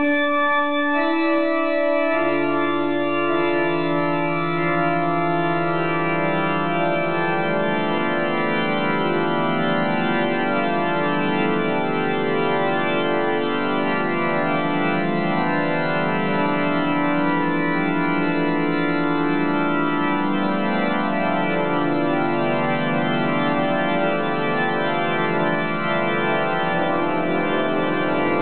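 Organ improvisation: slow, sustained chords whose notes shift gradually, with a low bass note coming in about two seconds in.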